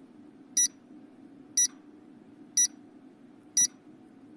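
Countdown timer sound effect: four short electronic beeps, one a second, over a faint steady hum.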